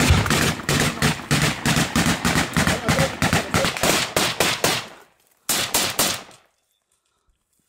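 Automatic gunfire: a long rapid burst, about eight to ten shots a second, lasting close to five seconds, then a second short burst about a second later.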